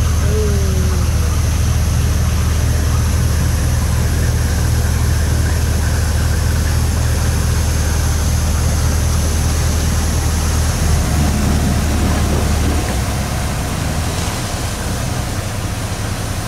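Narrowboat's diesel engine running steadily under way, a low even throb that eases off a little about two-thirds of the way through.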